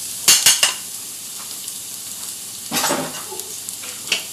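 Minced garlic sizzling in hot oil in a pan, with a steady hiss, while a utensil stirs it and knocks against the pan: a quick few knocks about half a second in, a louder stroke near three seconds, and one more knock near the end.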